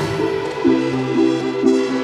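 Electronic pop-trap music: a synth riff of short repeated notes over a held bass note, with no drums.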